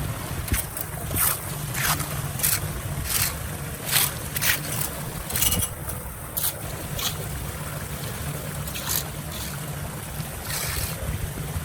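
Floodwater rushing steadily, with irregular short splashes, most of them in the first seven seconds.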